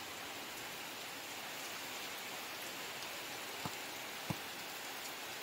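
Steady rain falling, an even hiss, with two faint short taps about three and a half and four seconds in.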